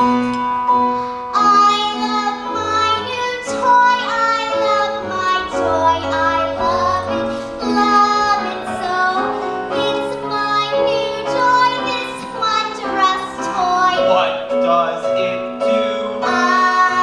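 Young voices singing a musical-theatre song over piano accompaniment.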